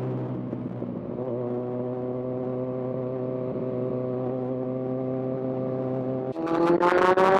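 Kawasaki Z1000's inline-four engine running at a steady pitch. About six seconds in, the throttle opens and the engine note rises and grows louder, with wind buffeting the mic.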